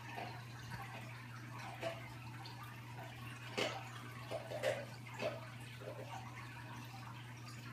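Aquarium water trickling and splashing over a steady low hum, with a few louder splashes around the middle.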